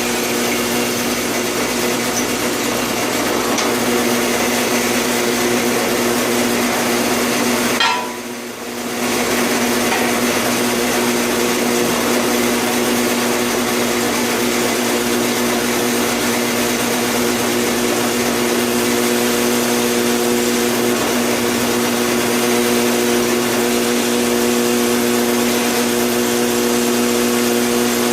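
An electric shop machine running steadily with a constant motor hum, dipping briefly about eight seconds in before carrying on.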